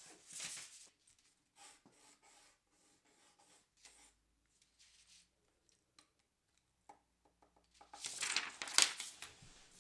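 Paper rustling and a pencil scratching across paper in short strokes, faint in the middle and with a louder run of rasping strokes near the end.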